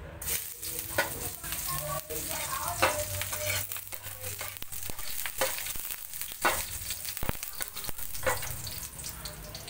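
Food sizzling in hot oil in a pan, the sizzle starting suddenly just after the start, with repeated clicks and scrapes of a spatula stirring it.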